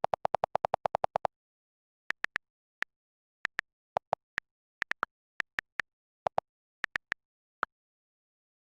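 Short electronic blips. A quick string of about ten a second at a lower pitch comes first, then single blips at a higher and a lower pitch, spaced unevenly with gaps, stopping near the end.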